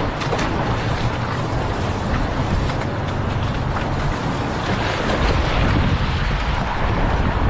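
Strong wind buffeting an action camera's microphone over choppy water, with chop splashing and sloshing around a surfski's hull as it is paddled.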